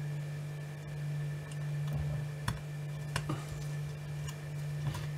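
Small metal tools tapping and clicking against a brass clock movement, a few scattered light clicks in the second half, as a screw is fitted into the plates. A steady low hum runs underneath.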